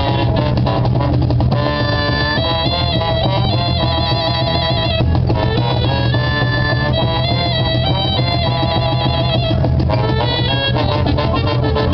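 A small live band playing: trombone and violin carrying long held melody notes with vibrato, over a steady low bass line, cajón and guitars.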